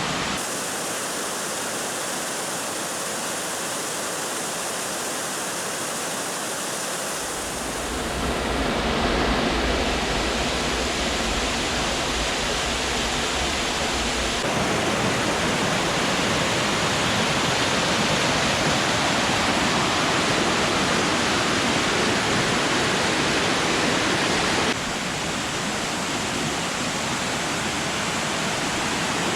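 Rushing water, a steady noisy rush that jumps in level and tone a few times as the shots change.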